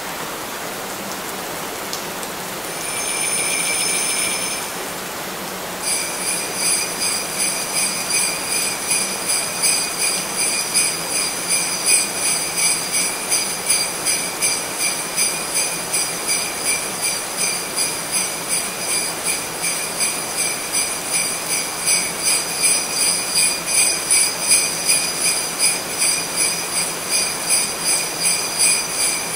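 Sleigh bells jingling in a steady rhythm, about two shakes a second, over a continuous even rushing noise. A brief jingle of the bells comes about three seconds in, and the rhythmic shaking starts about six seconds in.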